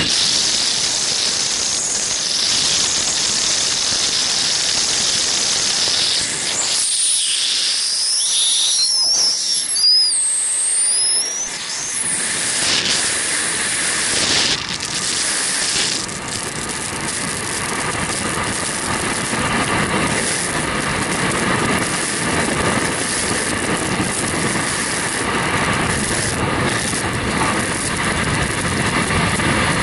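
Rushing wind of a skydiving exit and freefall. A short stretch of high whistling that rises and falls gives way to a steady, loud rush of air over the camera microphone.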